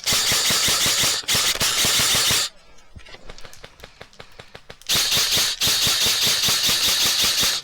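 Airsoft electric gun firing long full-auto bursts, a rapid even rattle of shots: one burst of about two and a half seconds with a brief break, a pause of about two seconds, then another long burst.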